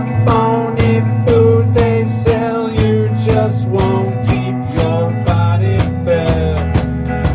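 Rock band playing an instrumental passage of a song: drums keep a steady beat of about two strikes a second under a bass line, while a lead melody with bending notes plays over the top.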